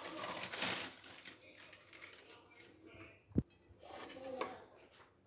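Faint rustling handling noise, then one dull thump about three and a half seconds in as a plate of burgers is moved on the counter.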